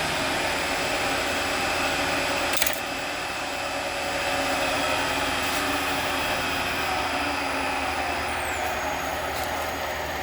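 Wood lathe running while a bottle cap is turned: a steady whir, with one sharp knock about two and a half seconds in.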